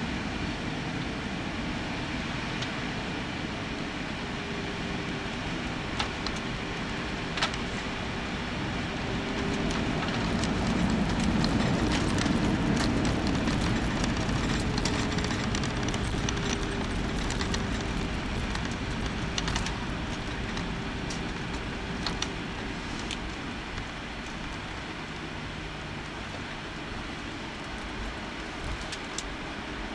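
Cabin noise of an Airbus A320 landing: a steady roar of engines and airflow, with sharp knocks about six and seven seconds in around touchdown. From about ten seconds in the roar swells louder, then eases off by about twenty seconds as the airliner slows on the runway with its spoilers raised, with light cabin rattles along the way.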